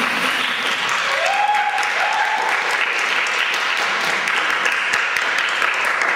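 An audience applauding. A short rising call, like a voice's whoop, sounds over the clapping about a second in.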